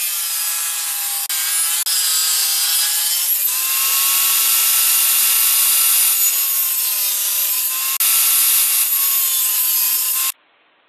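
Table saw running and cutting a slot into a piece of oak: a loud, steady whine whose pitch sags and recovers as the blade takes the load. It cuts off suddenly near the end.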